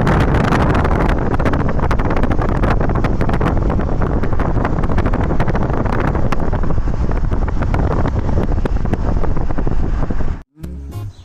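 Loud, steady rushing roar of a waterfall close to the microphone, with a crackly edge. It cuts off abruptly near the end, and music begins.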